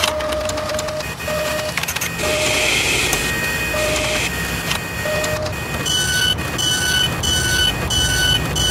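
Mechanical sound effects for an animated machine: steady whirring and clattering with irregular short blips, then from about six seconds in a run of electronic beeps about twice a second.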